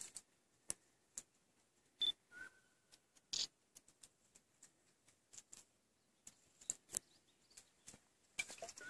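Quiet forest: sparse faint clicks and light rustles, with a short high chirp and a briefer lower whistle a little over two seconds in.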